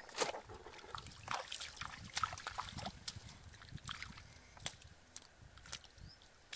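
Hands splashing and sloshing through shallow muddy water while groping for fish, with irregular small splashes and clicks.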